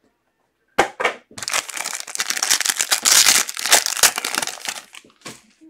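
Foil trading-card pack wrapper being torn open and crinkled by hand: a couple of sharp clicks about a second in, then a few seconds of dense crinkling.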